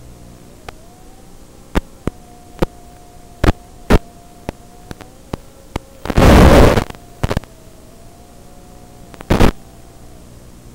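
Hiss from the audio channel of an analog FPV video link, with a faint wavering tone underneath, broken by a dozen or so sharp static crackles and two loud bursts of static, the longer one about six seconds in and a shorter one about nine seconds in: the radio signal breaking up.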